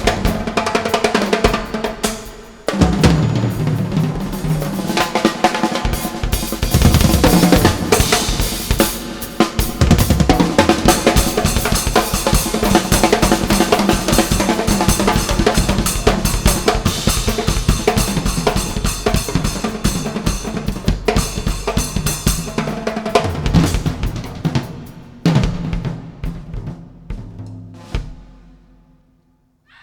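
Loud, drum-heavy music with kick and snare, played through a sound system. It breaks briefly about two and a half seconds in, thins out near the end and fades away.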